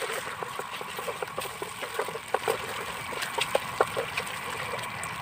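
A utensil stirring a simmering buffalo-wing sauce in a pan: irregular clinks and scrapes against the pan over a low bubbling hiss.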